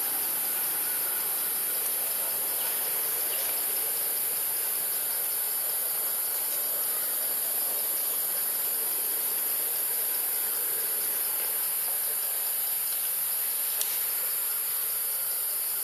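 Steady, unbroken high-pitched drone of forest insects, over a soft background hiss. A single short high chirp sounds near the end.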